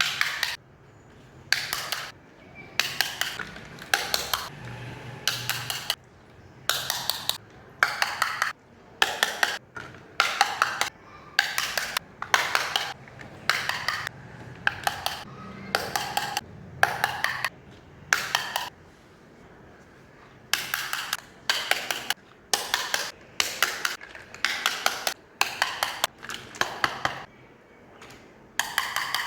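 Miniature toy kitchenware clinking and clattering as the pieces are handled, in short bursts of small clicks coming about once a second, with brief quiet gaps between them.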